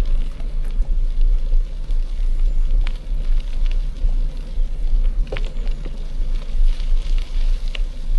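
Wind buffeting the microphone of a camera on a moving mountain bike, a steady low rumble, with the crunch of tyres on a gravel forest road and scattered sharp clicks and rattles.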